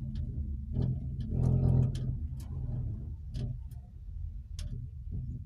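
Ropeway cable car cabin in motion: a steady low rumble with irregular clicks and rattles from the cabin.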